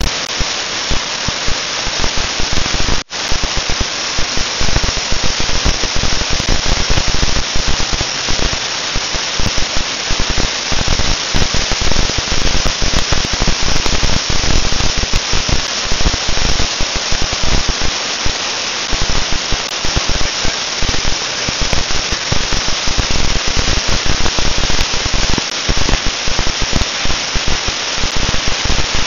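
Floodwater rushing over a lake spillway and down a rocky channel: a loud, steady rush of white water from the very high, fast-moving flow. The sound cuts out for an instant about three seconds in.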